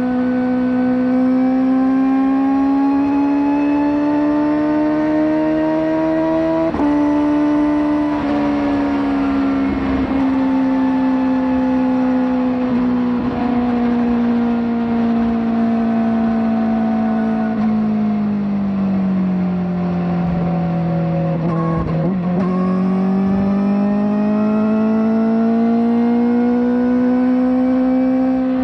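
Kawasaki ZX-4RR's 399 cc inline-four running at high revs through an aftermarket slip-on exhaust. Its steady note climbs slowly and breaks briefly about seven seconds in, then sinks gradually for over ten seconds. It breaks again at its lowest point and climbs back up near the end.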